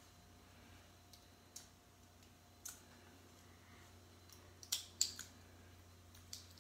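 Small, sharp clicks and ticks of fingers handling a disassembled Kindle's frame and circuit board, working at its parts and connectors. The clicks come a few at a time at irregular intervals, the loudest two close together about five seconds in.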